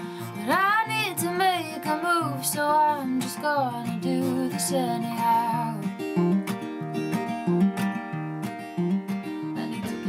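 Acoustic guitar music: a woman's voice sings a wordless melody over the guitar for the first half or so, then the guitar carries on alone, strummed.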